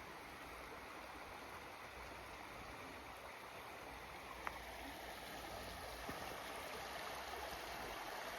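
Steady rushing of running water, with one faint click about four and a half seconds in.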